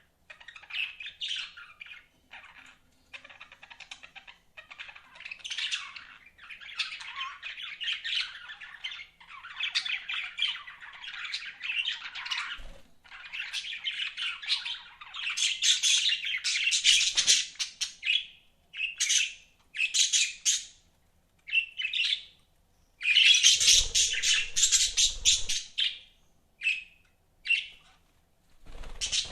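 Budgerigars chirping and warbling in rapid, chattering runs with short pauses between them, the loudest run a little past the middle.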